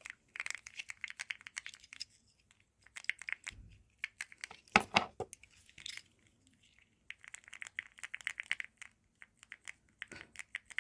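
Keyboard fidget fitted with creamy mechanical switches, its keys pressed in quick runs of soft, really quiet clicks, several bursts with short pauses between.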